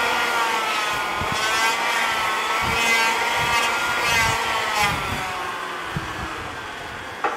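A handheld electric power tool running on wood, its motor whine wavering up and down in pitch as it bites into the work, then dying away over the last couple of seconds.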